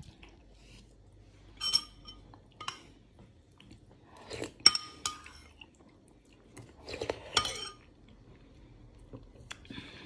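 Metal spoon clinking and scraping against a ceramic soup bowl: a few short separate clinks, the loudest about four and a half and seven seconds in.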